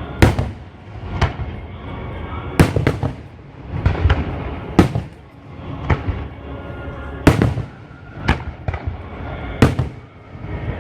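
Aerial fireworks shells bursting at a fireworks display: about ten sharp bangs at uneven intervals, with a continuous rumble and crackle between them.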